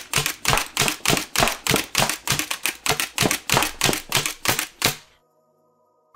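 Orion Blasters Lynx, a 3D-printed pump-action bullpup springer foam blaster, being slam-fired: the pump is worked rapidly with the trigger held, so each stroke cocks and fires a dart. It makes a fast, even run of sharp clacks that stops about five seconds in.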